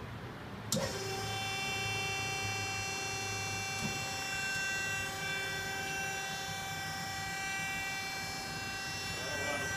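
Scotchman DO 120/200-24M hydraulic ironworker's electric motor and hydraulic pump switched on with a sharp click about a second in, then running up to a steady, high-pitched whine made of several fixed tones.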